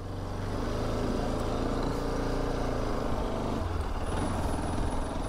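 A motor vehicle's engine running close by in the street. It swells over the first second and then holds steady, with a faint high whine near the end.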